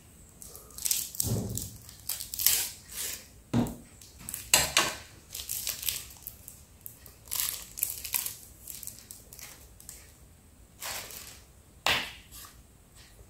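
Thin plastic wrapper crinkling and tearing in short bursts as a drinking straw is unwrapped, then a sharp click near the end as the straw is pushed through the foil hole of a small milk carton.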